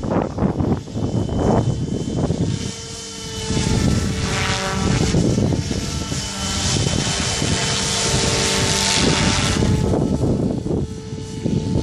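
Goblin 500 electric RC helicopter with an Xnova 1200kv motor in flight: steady motor whine over the whir of the rotor blades, with gusty wind buffeting the microphone.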